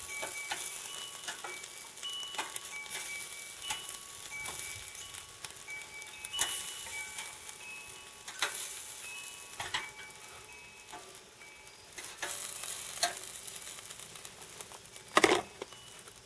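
Squirrel pieces in barbecue sauce sizzling on a hot grill while they are turned with metal tongs, with scattered clicks of the tongs on the grate and one louder clank near the end.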